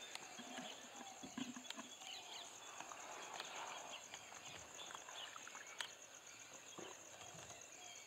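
Faint open-country ambience: a steady, rapidly pulsing high-pitched insect call, with scattered faint bird chirps and ticks.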